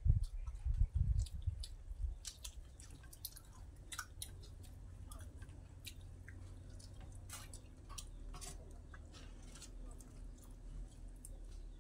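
Eating sounds from people eating fish curry with their hands: chewing and wet lip-smacking clicks scattered throughout, with a few low thuds in the first two seconds.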